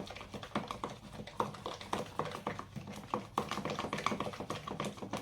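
A spoon stirring a wet slime mixture in a plastic pot, with quick, irregular clicks and taps of the spoon against the pot. The slime is still being activated.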